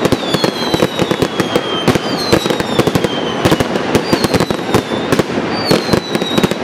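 Fireworks display: dense, rapid crackling and popping of exploding stars, with four whistling fireworks, each whistle falling in pitch, one every second or two.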